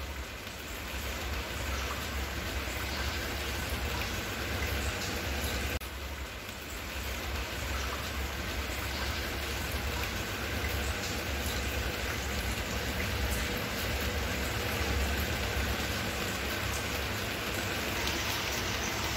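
Steady, even hiss with a low rumble underneath and no distinct events, dipping slightly about six seconds in.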